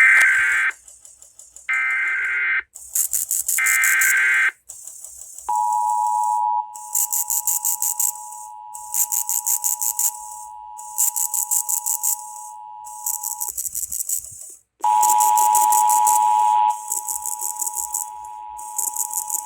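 An Emergency Alert System test: three short screeching bursts of SAME digital header data, then the two-tone EAS attention signal. The attention signal is a steady dual tone that sounds for about eight seconds, breaks off briefly, and starts again. A high hiss pulses over it roughly every one and a half seconds.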